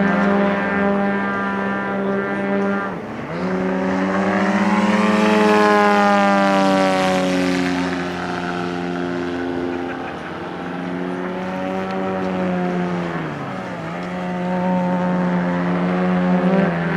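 Radio-controlled model plane's piston engine buzzing steadily as it flies passes. The pitch swoops up and then falls away as the plane sweeps by, loudest about six seconds in, with another drop in pitch a few seconds before the end.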